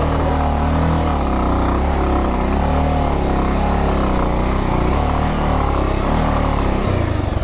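Motorcycle engine running hard under throttle on a steep climb, its pitch wavering up and down as the throttle is worked, until it stops abruptly near the end.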